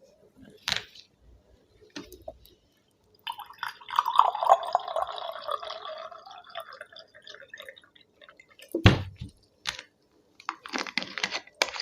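Thums Up cola splashing and fizzing as it is poured, for about four seconds, amid a few small clicks. A single sharp knock comes about nine seconds in, and a short burst of clatter near the end.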